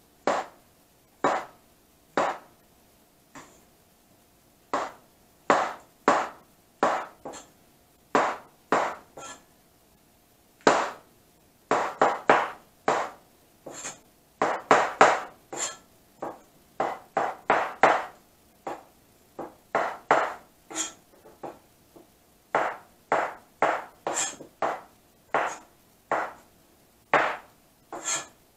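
Chinese cleaver slicing white button mushrooms on a cutting board: a long run of sharp single chopping knocks of blade through mushroom onto the board, at an uneven pace with short quicker runs.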